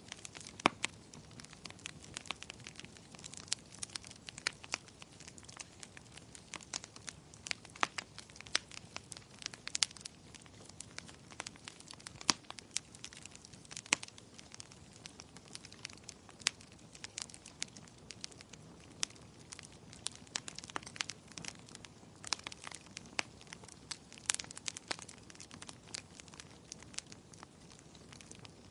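Wood fire in a fireplace crackling, with irregular sharp pops and snaps over a low steady hiss of burning.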